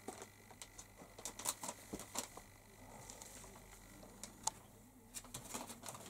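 Faint, irregular light clicks and taps, scattered unevenly, the sharpest one about four and a half seconds in.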